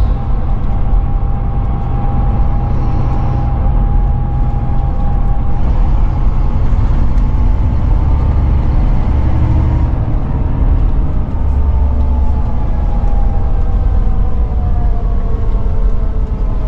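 Volvo B9R coach's engine and drivetrain running under way, heard from inside the cabin: a steady low rumble with road noise and a whine that drifts slowly lower in pitch during the second half.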